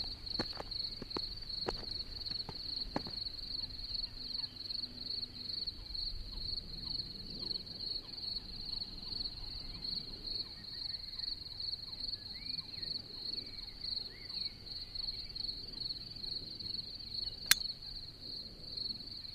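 A cricket chirping steadily in a high, evenly pulsing trill. There are a few footstep-like clicks in the first seconds and a single sharp click near the end.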